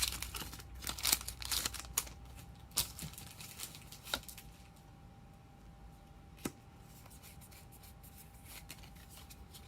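Foil Pokémon booster pack being torn open and trading cards handled: rustling, crinkling and small clicks, busiest in the first few seconds, then a couple of single sharp clicks over quieter handling.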